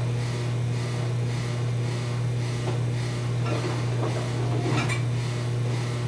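Steady low hum of commercial kitchen machinery, with a short clatter of dishes and racks about three and a half seconds in that ends in a sharp click near the five-second mark.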